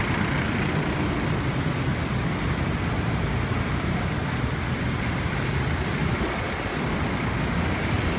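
Steady road traffic noise from passing vehicles on a city street.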